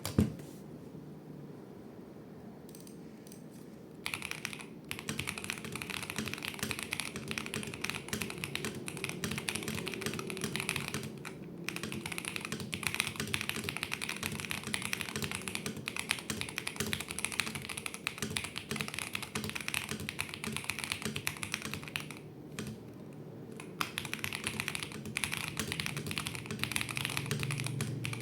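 Typing on a Mchose Ace 68 Air mechanical keyboard with Kailh switches: fast, continuous keystroke clacks starting about four seconds in. The typing pauses briefly twice, once near the middle and once later on.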